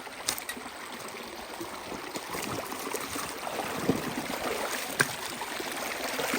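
Creek water rushing through a sluice box, slowly growing louder, with a few sharp knocks of gravel or stones, one about four seconds in and a louder one about five seconds in.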